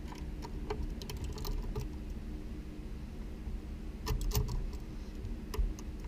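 Scattered small clicks and taps of speaker wire being handled and pushed into a subwoofer's terminal, with a few louder clicks about four seconds in, over a steady low hum.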